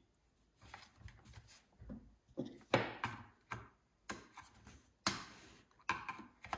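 Scattered light clicks and knocks from a Stihl 026 chainsaw's plastic top cover being pressed into place and its fastener turned with a screwdriver. The sharpest knocks come a little under three seconds in and again about five seconds in.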